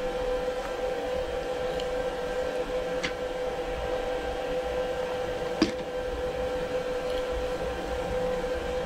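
A steady machine hum, over which a few light metallic clicks come as a tap is turned by hand in a tap wrench to thread a grub-screw hole in a steel bush. One sharper click comes about halfway through.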